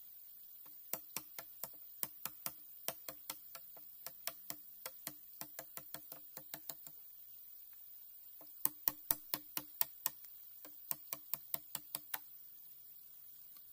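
Repeated sharp strikes on bamboo, each with a short hollow ring, coming in quick runs of about three a second with two short pauses.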